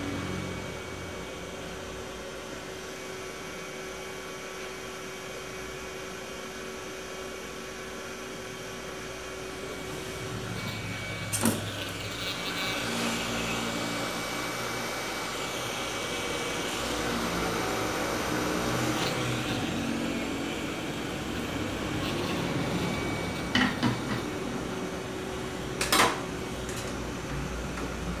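Hot-air rework station blowing on a TV panel's circuit board to desolder the burned VGL switching transistor: a steady hiss that grows louder about ten seconds in and eases off near the end. There are a few short sharp clicks along the way.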